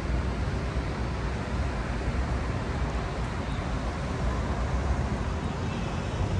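City street traffic noise: a steady hum and rumble of cars on the road beside the sidewalk.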